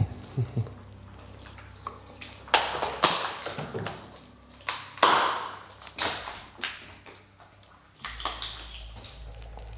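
The heavy metal latch and door of a walk-in cold room being worked open: a series of sharp metallic clanks and scrapes, some with a ringing ping, most of them between about two and seven seconds in.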